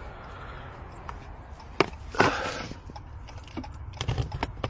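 A few sharp clicks and knocks, with a brief rustling scrape about two seconds in.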